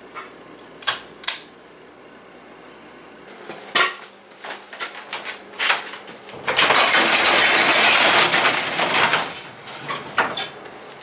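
Metal hand tools clinking and clattering: a few sharp separate clinks, then a louder rattling that lasts about two and a half seconds past the middle, as when sockets and wrenches are rummaged through in a toolbox.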